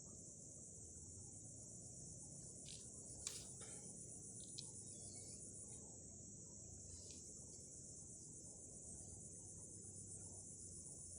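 Steady high-pitched insect chorus with a fast pulsing edge, faint throughout, and a few soft clicks, the sharpest about three seconds in.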